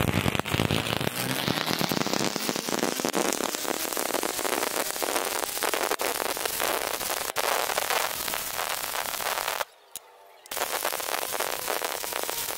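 Stick-welding arc (shielded metal arc welding with a flux-coated rod) burning steadily with a dense, sputtering crackle as the bead is laid along the joint. It cuts out for under a second near the end, then resumes.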